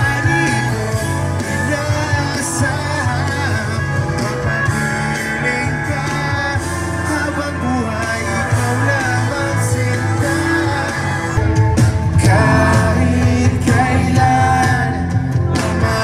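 Loud live music with a singer over a concert sound system, heard from within the crowd, with a heavy bass that fills out and grows a little louder about twelve seconds in.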